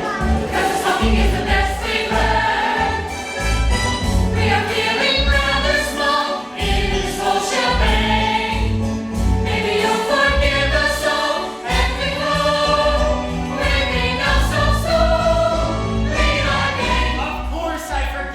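Musical-theatre ensemble singing together over instrumental accompaniment with a strong, pulsing bass line.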